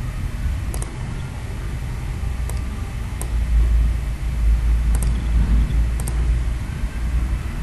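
Low, steady rumble that swells about halfway through, with about five faint computer-mouse clicks scattered across it.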